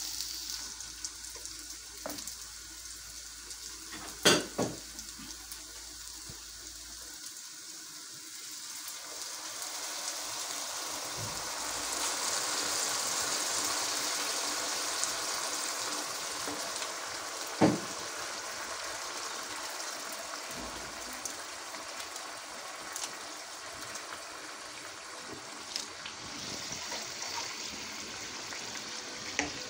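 Bulgur and rice frying in oil in a pan with a light sizzle as they are stirred, then hot water poured into the hot pan, rising to a loud rushing hiss about twelve seconds in and settling into a steady bubbling boil. Two sharp knocks, about four and eighteen seconds in, are the loudest sounds.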